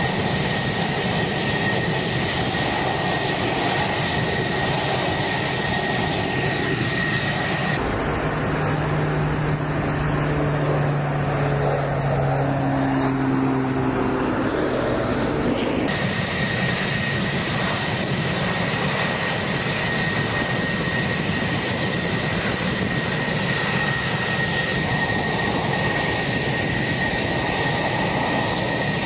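F-16 fighter jet's engine running at idle: a steady rushing noise with a thin high whine. From about eight to sixteen seconds in, this gives way to a lower hum that wavers in pitch, then the whine returns.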